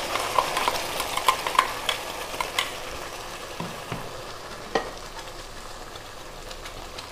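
Chopped onions frying in oil in a kadai, sizzling and crackling as ground masala paste is poured onto them. The crackles are thick for about three seconds, then thin out while the sizzle fades quieter.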